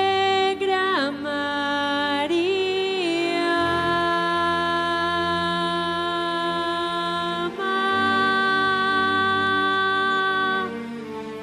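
Samba-school lead singer's slow sung introduction, drawing out long held notes with a couple of sliding pitch bends in the first few seconds, over a sustained backing and with no drums.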